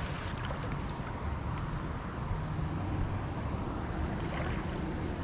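Steady rush of creek water around a wading angler, with a low wind rumble on the microphone.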